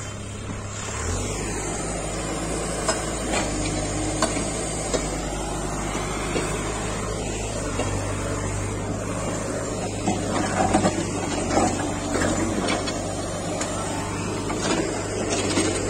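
Demolition work: a heavy machine's engine running steadily, with scattered clinks and knocks of breaking and falling rubble, busier in the second half.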